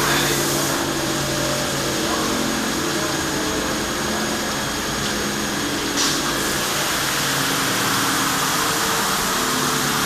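Hanta AMP-02 automatic carpet washing machine running steadily, its washing carriage travelling over the rug while spraying water onto the foam, a continuous mechanical whir and hiss. A short knock about six seconds in.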